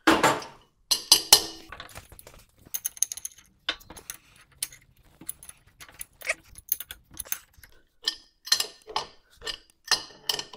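A wrench working the threaded bolt of a power hammer's die, giving a string of irregular sharp metallic clicks and clinks, some ringing briefly. A louder clank comes right at the start.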